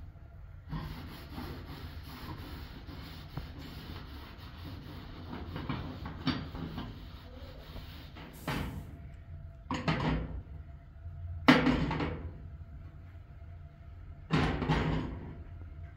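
Sponge scrubbing the enamel top of a gas cooker, a steady rubbing, then four loud clanks as the metal pan grates are set back down on the stove top.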